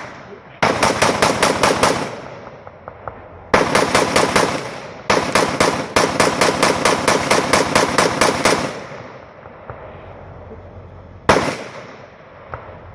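Rapid gunfire in several long strings of about six shots a second over the first eight or so seconds, then a single shot about eleven seconds in.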